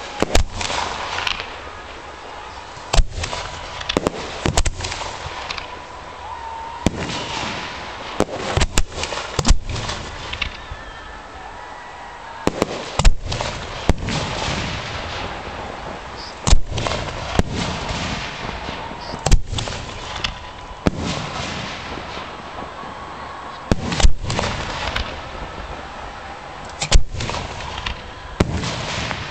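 Aerial fireworks fired from 4 to 6 inch mortars: a string of sharp bangs from shell launches and bursts, coming at irregular intervals from under a second to a few seconds apart, with noise between them.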